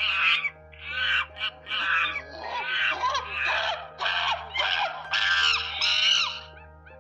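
Monkeys calling: a run of about nine short, high, screechy calls in quick succession, bending up and down in pitch, which stop shortly before the end.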